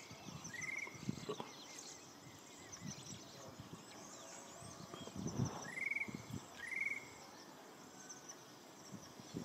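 Outdoor natural ambience: a bird gives short buzzy upswept calls in two pairs, near the start and about six seconds in, over high pulsed insect chirping. A few low thumps come around the middle.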